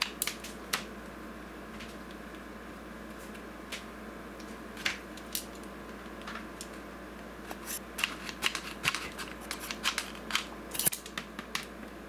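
Small sharp clicks and taps from a hot glue gun and fingers working at a laptop's plastic chassis while glue is dabbed around a charging jack. A few come near the start, then a quick run of them in the last few seconds, over a steady background hum.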